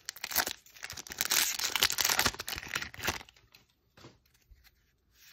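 Foil wrapper of a Magic: The Gathering booster pack crinkling and tearing as it is ripped open by hand, for about three seconds. After that, only faint rustles and light clicks as the cards are handled.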